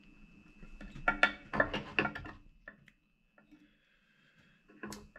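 A series of small, quick clicks and ticks from hands handling a bobbin holder and thread at a fly-tying vise, mostly in the first half, with one more near the end, over a faint steady high-pitched whine.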